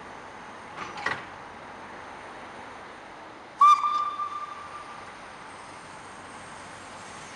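A small narrow-gauge steam locomotive, a Kerr Stuart Wren-class saddle tank, sounds one short blast on its steam whistle, a clear steady note that starts sharply and fades over about a second and a half. A brief knock comes about a second in.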